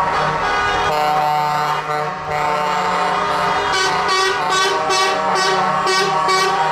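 Semi-truck air horns blaring in several held notes at once, then a run of short repeated blasts, about two or three a second, through the second half.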